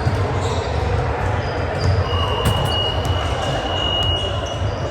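A referee's whistle blown in one long steady blast of about two seconds, starting a little after two seconds in, over steady gym noise with thuds of a bouncing ball.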